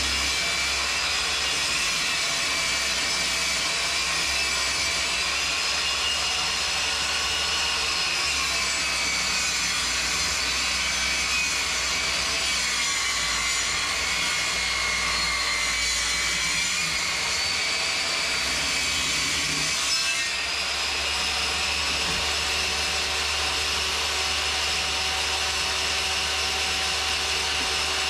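Circular saw in a Triton Workcentre saw table ripping along an old hardwood fence paling, the motor's whine running under the rasp of the blade in the wood. The whine sags in pitch partway through as the blade takes the load, then recovers. About two-thirds of the way through the sound changes abruptly and the saw runs on steadily.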